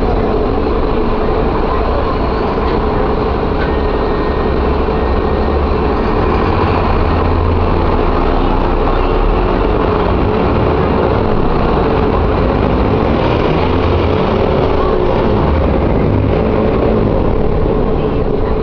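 Mercedes-Benz O-500M bus's diesel engine running steadily, a continuous low rumble with a steady hum on top.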